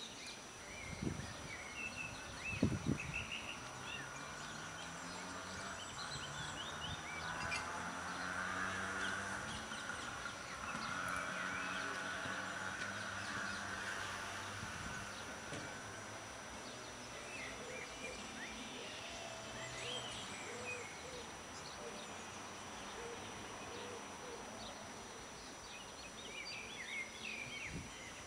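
Outdoor ambience: small birds chirping, over a low droning sound that swells to its loudest midway and then fades, with a couple of knocks near the start.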